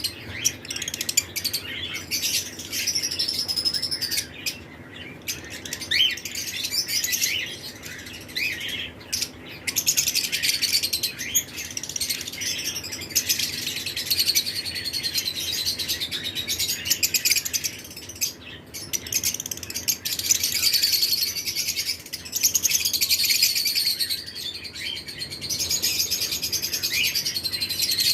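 A flock of lovebirds chirping: a continuous tangle of many short, high-pitched chirps and squeaky calls overlapping each other, growing busier in a couple of stretches.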